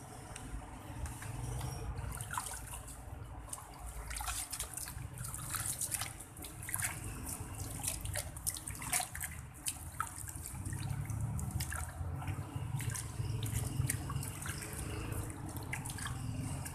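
Water splashing and sloshing in a plastic basin as a hand swishes and rubs sweet potato leaves to wash them, in many short irregular splashes.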